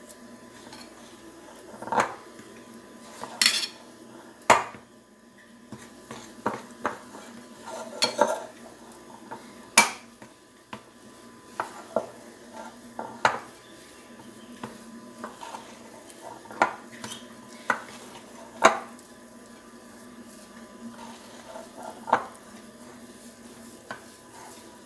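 A metal utensil stirring stiff bread dough in a glass bowl, with irregular clinks and scrapes against the glass every second or two.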